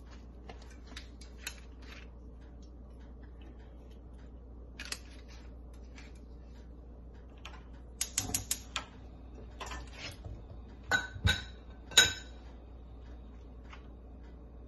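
Kitchen utensils and dishes clicking and clinking: scattered light clicks, a quick run of four about two-thirds of the way in, then three sharper clinks that ring briefly near the end, the last one loudest.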